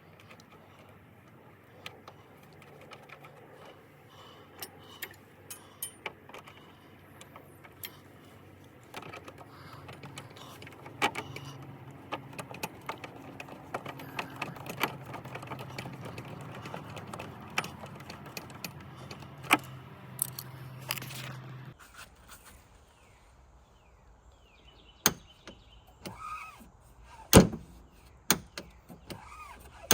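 Scattered clicks and knocks of a small John Deere tractor's hood latch and hood being handled, over a steady hum that cuts off suddenly about 22 seconds in. Sharper, louder knocks follow near the end.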